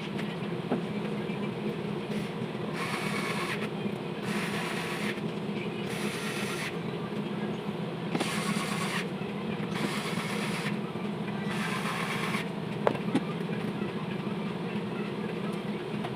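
A machine hums steadily, with six short bursts of hiss about a second and a half apart in the middle.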